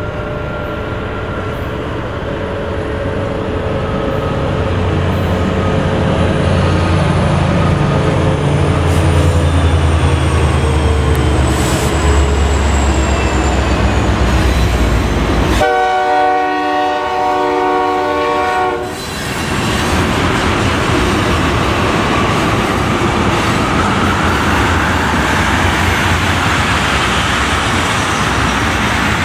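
CSX freight train's diesel locomotives approach with a low engine rumble that grows louder, then sound one horn blast of about three seconds, roughly sixteen seconds in. Loaded crude oil tank cars then roll past with a steady rolling rumble and wheel clatter.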